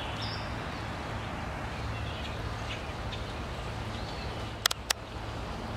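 Outdoor ambience: small birds chirping faintly here and there over a steady low hum, with two quick sharp clicks near the end.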